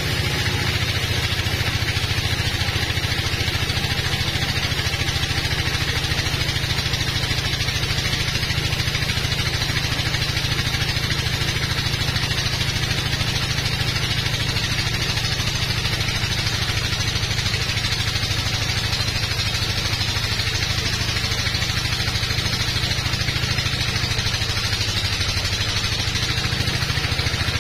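Sawmill bandsaw running steadily while its blade rips a teak log lengthwise into a slab: a constant low machine drone with a higher hiss over it.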